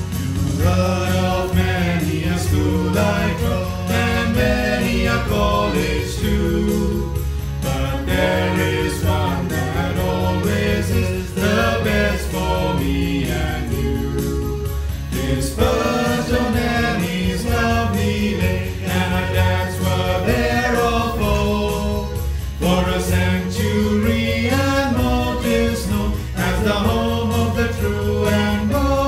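A choir singing a school song over instrumental backing with a steady low bass, in sung phrases a few seconds long.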